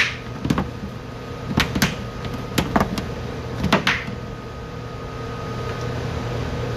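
Hands squishing and kneading a wet salmon, rice and egg mixture in a stainless steel bowl, with a run of short wet slaps and knocks in the first four seconds. A steady hum of kitchen equipment runs underneath.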